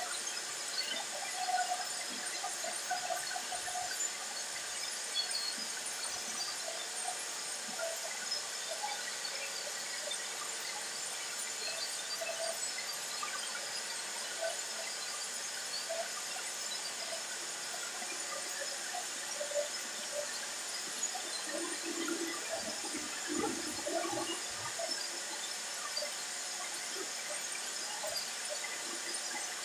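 Electric soap extruder running: a steady whirring hiss with faint high steady tones. A few soft knocks come about three-quarters of the way through.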